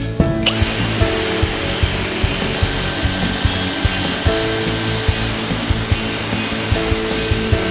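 Cordless drill spinning a wire wheel brush against a steel framing square, scrubbing surface corrosion off the metal: a steady whirring scrape with a thin motor whine, starting about half a second in.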